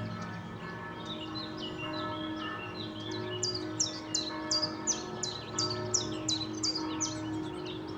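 Distant church bells ringing, their tones held and overlapping, over a low city rumble. From about three and a half seconds in a bird repeats a series of sharp falling notes, about three a second, louder than the bells, until near the end.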